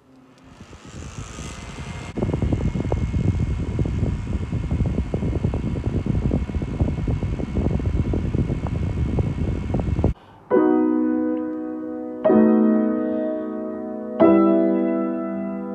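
A handheld USB fan switched on, its air noise rising and then stepping up louder about two seconds in, running steadily until it cuts off about ten seconds in. Then a piano: three slow chords, each held about two seconds.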